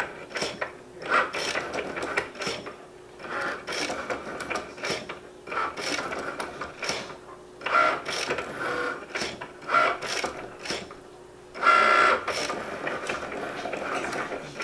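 Cricut Maker drawing with its pen: the carriage and mat-feed motors whir in short stop-start bursts whose pitch changes from move to move, with clicks between moves.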